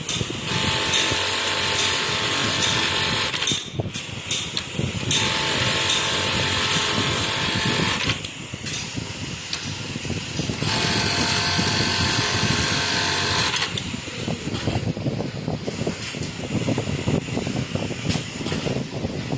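Automatic bartack sewing machine running through its tacking cycle three times, each burst of sewing lasting about three seconds with short pauses between. It is followed by a quieter, rougher mechanical noise near the end.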